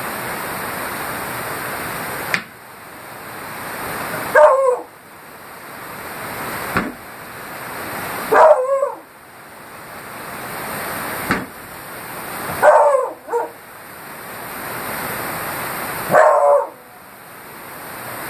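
Beagle giving alarm barks at an upright vacuum cleaner it takes for an intruder: four loud barks about four seconds apart, some doubled with a quick second bark.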